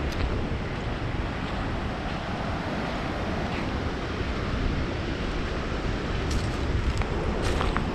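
Ocean surf washing on the beach, with wind buffeting the microphone as a steady low rumble. A few short clicks come near the end.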